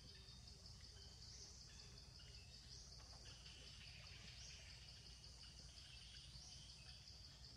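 Faint outdoor ambience: a steady high insect trill with scattered faint bird calls.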